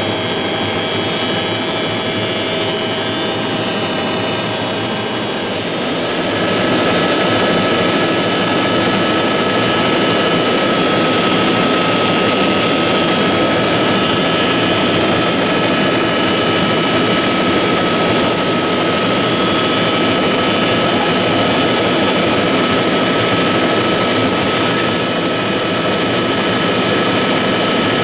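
Helicopter in flight heard from inside the cabin: a steady turbine whine over a dense rotor and engine roar. It gets louder about six seconds in.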